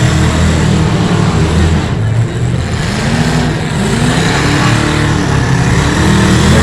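Demolition derby cars' engines revving, several at once, their pitch rising and falling again and again.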